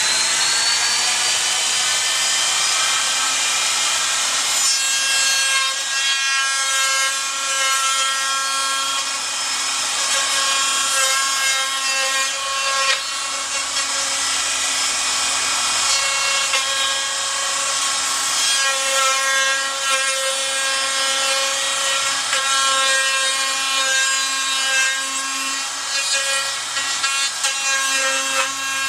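Electric router with a roundover bit spinning up with a rising whine at the start, then running steadily while cutting along a wooden workpiece.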